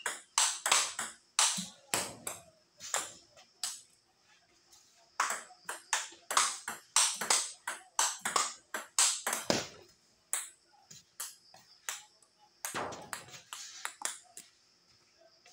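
Table tennis rally: the plastic ball clicking back and forth off rubber paddles and the tabletop in quick runs, with short breaks between runs and a duller knock near the end.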